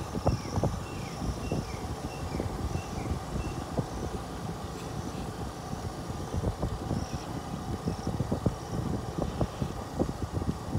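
Vehicle driving over a rough unpaved track: a steady low rumble with frequent irregular knocks and jolts from bumps and rattles.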